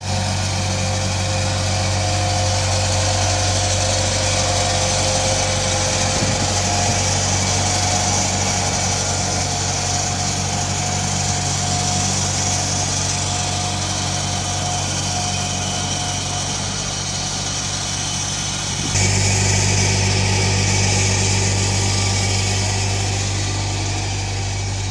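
PowerBoss ride-on industrial street sweeper running as it drives along the road: a steady engine drone with a thin whine over it. About 19 seconds in, the sound abruptly becomes louder and deeper.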